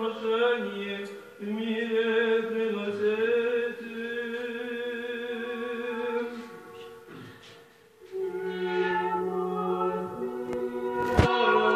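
Choir singing Orthodox liturgical chant in harmony, in slow phrases with long held notes. The singing pauses about seven seconds in and resumes a second later on a lower note, and a sharp click sounds near the end.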